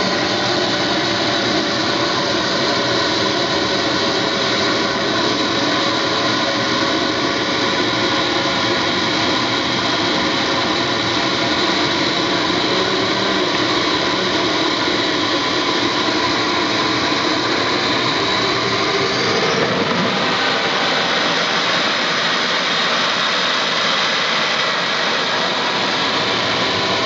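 A model jet turbine running with a steady whine. About twenty seconds in, the pitch shifts and the low rumble drops away.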